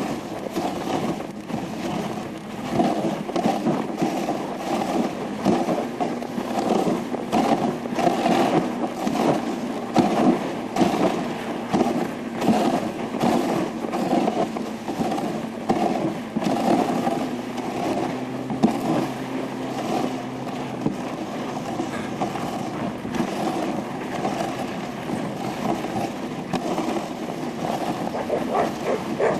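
Wooden dog sled running over packed snow behind a dog team: continuous scraping of the runners on the snow, with frequent small knocks and rattles from the moving sled.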